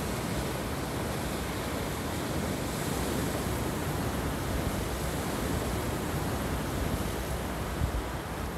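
Sea surf breaking against boulders on a rocky pebble shore: a steady, even wash of wave noise, with some wind rumbling on the microphone.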